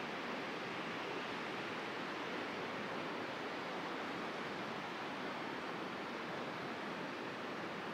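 Steady, even hiss of outdoor ambient noise, unchanging and with no distinct events.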